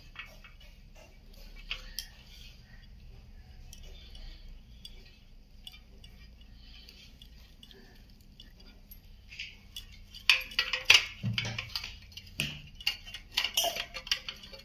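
Glass and metal bangles on both wrists clinking against each other and the small brass idol as the hands work, with scattered light clinks at first and a quick run of louder, sharper clinks about ten seconds in.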